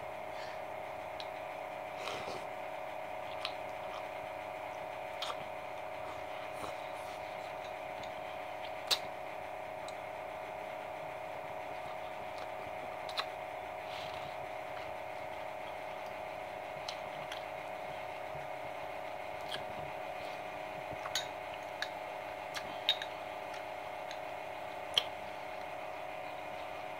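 Eating sounds: scattered small sharp clicks of a fork against a ceramic ramekin, over a steady low hum.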